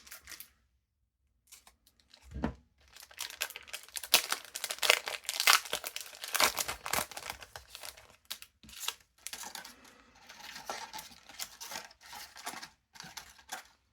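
Foil booster pack wrapper being torn open and crinkled, loudest in the first few seconds of tearing and then settling into lighter crinkling. A soft knock comes just before the tearing starts.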